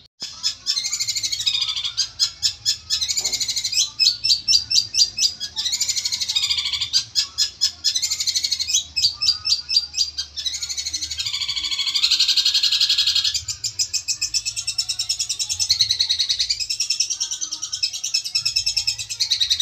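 Long-tailed shrike (cendet) singing loudly and almost without pause: a varied string of rapid trills and runs of fast repeated chattering notes, its repertoire of mimicked 'isian' phrases. It is a challenging song to provoke rival shrikes.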